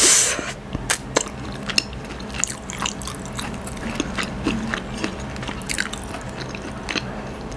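A sharp hissing breath out through the mouth, cooling it from spicy food, then scattered small mouth clicks and smacks as the eater finishes chewing.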